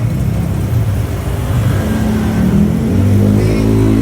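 Yamaha XMAX scooter engine running, its pitch rising about halfway through and then holding as it is revved.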